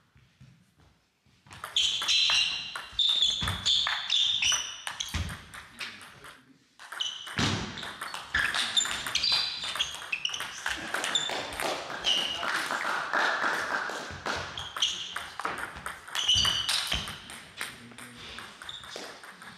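Table tennis rallies: the celluloid-type ball clicking back and forth off bats and table in quick runs of sharp ticks, starting after about a second and a half of near silence, with a short break about seven seconds in.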